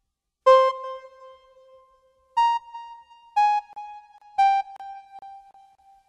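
Slow synthesizer music in a keyboard tone: four single notes, each struck and left to ring out. The first, about half a second in, sounds two pitches an octave apart; the next three follow about a second apart, each a little lower in pitch.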